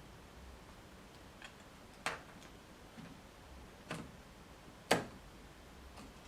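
A few small sharp clicks and taps of laptop parts being handled and fitted during reassembly: three clear ones about two, four and five seconds in, the last the loudest, with fainter ticks between.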